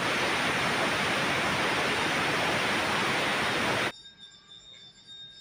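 Aluminium stovetop pressure cooker whistling: a loud, steady hiss of steam venting past the weight valve, which cuts off suddenly after about four seconds. This single whistle signals that the cooker has reached full pressure and the rice and dal are cooked.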